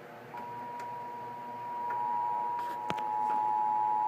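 Emergency Alert System attention signal: a steady two-tone alarm, 853 and 960 Hz sounding together, that starts a moment in and grows louder about two seconds in. It announces a severe thunderstorm warning. A single click comes near three seconds in.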